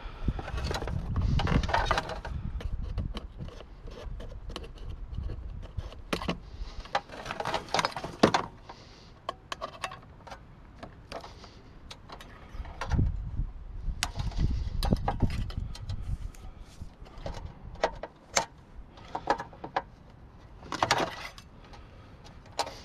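Water cooler being taken apart by hand: metal and plastic parts clinking, clattering and scraping as they are handled, with scattered sharp clicks.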